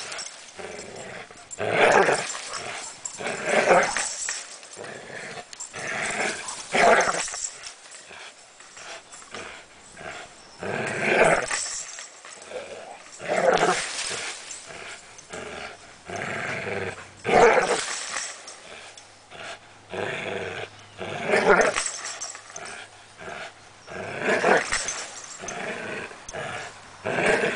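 American pit bull terrier growling as it jumps and tugs on a springpole rope, in loud bursts every few seconds.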